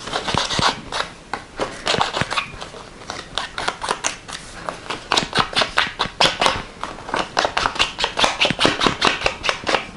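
Paper cutout edges being rubbed against a distress ink pad, a dry scratching of paper on the pad in short strokes that come quicker and more evenly in the second half, about five a second.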